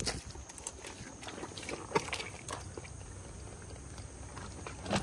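Scattered wet squelches and knocks, the sharpest about two seconds in, as a stick is worked into a muddy mangrove crab burrow holding mud crabs.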